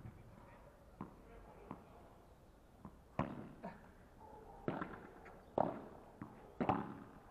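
Padel ball pops in a rally: sharp strikes of the ball off the rackets and its bounces on the turf, coming about once a second, the loudest a little past the middle and near the end.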